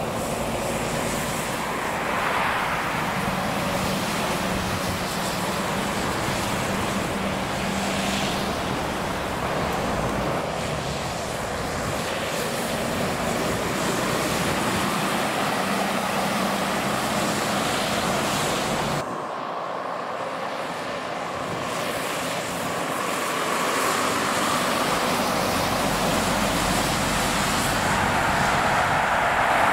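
Steady motorway traffic noise: the tyre rush and engine hum of passing trucks and cars. The low rumble drops away abruptly about two-thirds of the way through.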